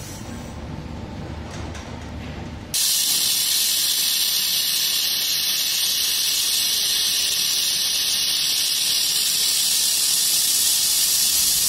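Handheld fiber laser welder welding 3 mm aluminum: a loud, steady hiss starts abruptly about three seconds in and holds without a break. A low machine hum comes before it.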